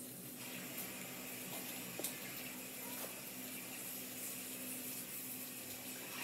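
Kitchen tap running in a steady stream, turned on about half a second in, with a sharp click about two seconds in.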